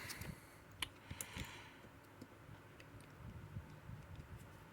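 Faint, scattered small clicks and ticks from the Sezam combination lock being worked by hand, with a few sharper clicks about a second in.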